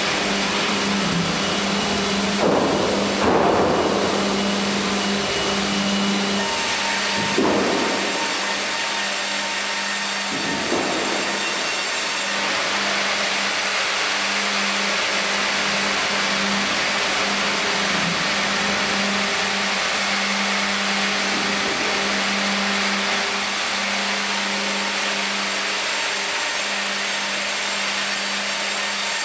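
Fimaksan Fi.120 tandem band saw cutting a log carried on its Fi.130 hydraulic carriage: a steady machine hum under the hiss of the blades through wood. There are a few louder swells at about three, seven and ten seconds in.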